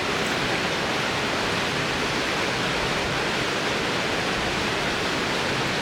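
Steady rush of river water pouring into a rocky pool.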